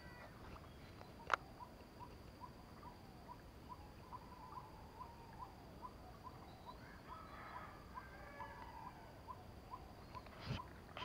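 An animal's short call repeated steadily, about three notes a second, over a faint steady high hum. A single sharp click comes about a second in and a soft thump near the end.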